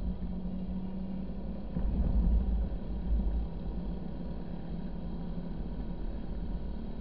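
Low, steady rumble of a vehicle driving over sand, swelling briefly about two seconds in.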